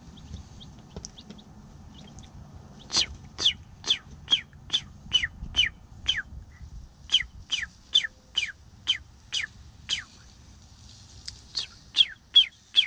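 Rhode Island Red chicks peeping: a run of loud, high peeps that fall in pitch, about two to three a second. They start about three seconds in and pause briefly near the middle.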